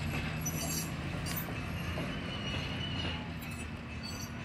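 Gas locomotive of a narrow gauge train idling at a standstill: a steady low engine hum, with a few light clicks.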